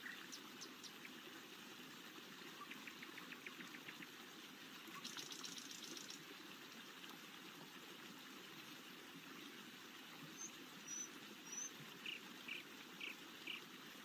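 Forest ambience: a steady faint rush of running water with scattered bird calls over it, including a fast trill about three seconds in, a buzzy call about five seconds in, a few short high chirps, and four repeated notes near the end.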